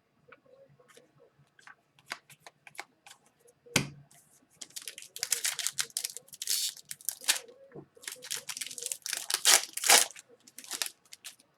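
Plastic foil wrapper of an Upper Deck Series 1 retail hockey card pack being torn open and crinkled, the loudest part in the second half, after a few small clicks and a single knock about four seconds in.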